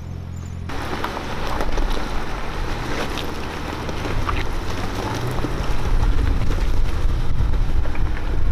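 Four-wheel-drive vehicle crawling over rocks: the engine runs under load, wind buffets the microphone, and there are scattered knocks and clicks. The sound changes abruptly just under a second in, from a steady engine note to a louder, rougher mix.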